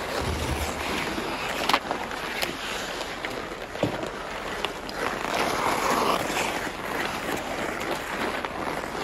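Hockey skates scraping and swishing on ice as several players skate, with a few sharp clacks of sticks on the puck or ice. A louder, longer scrape comes about five to six seconds in.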